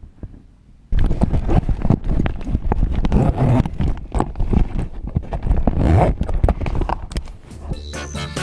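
Rapid, irregular knocking and clattering that starts about a second in, after a brief near silence.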